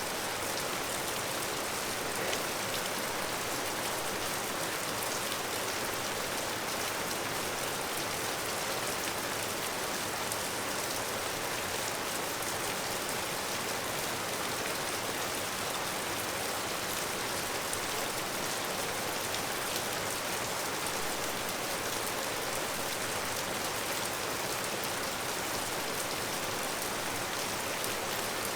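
Steady heavy rain falling, an even dense hiss of countless drops that holds constant.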